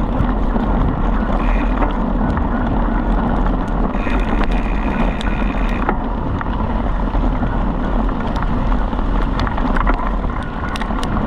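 A bike rolling fast over a dirt trail behind two pulling dogs: steady wind buffeting the microphone over the rumble of the tyres on the dirt, with scattered ticks and rattles from the bike. A faint high whine comes in about four seconds in for a couple of seconds.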